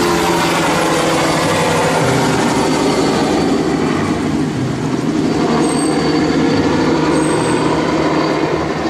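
Light single-rotor helicopter flying low past, a steady loud rush of engine and rotor noise with a low hum underneath.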